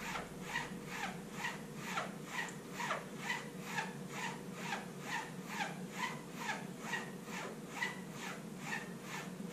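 Straight razor stropped on the linen side of a strop after a shave, a steady run of light swishing strokes at about two a second. This stropping cleans and dries the edge.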